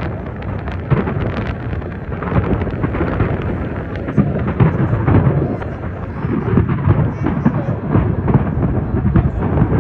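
Large fireworks display: shells bursting in rapid succession, many bangs overlapping into a continuous rolling rumble with crackle.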